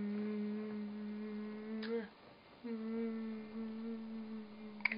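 A person humming a steady "mmm" on one low, unchanging note, held for about two seconds, breaking off, then held again for about two seconds before stopping near the end.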